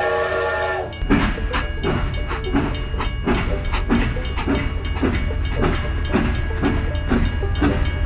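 Steam-train sound of a toy locomotive: a chord-like whistle blast that ends about a second in, then steady chugging at about three to four beats a second over a low hum.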